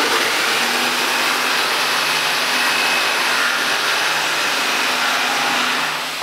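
HO-scale model train running past close by: a steady whir of wheels on the rails and the locomotive's motor, with a faint held hum, dropping away near the end.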